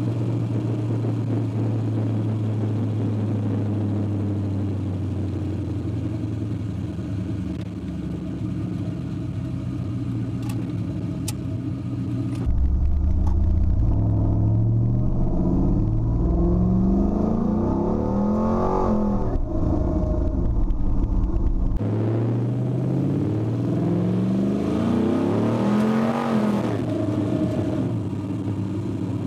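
Swapped 5.3-litre LS V8 in a Ford Ranger pickup, heard from inside the cab: running steadily at cruise, then about halfway through the revs climb for several seconds under acceleration and drop back, and climb once more near the end before easing off.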